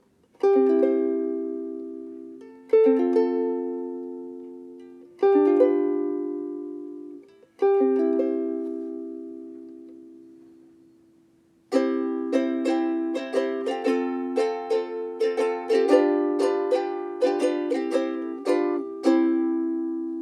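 LUNA MV-3Sf soprano ukulele with a solid Fiji mahogany body being strummed. Four single chords are each let ring out, then after a pause comes a faster rhythmic strumming passage that ends on a chord left ringing.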